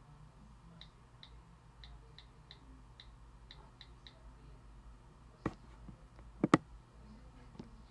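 A run of faint ticks about twice a second, then a few sharp single clicks of a computer mouse, two of them close together a little past the middle.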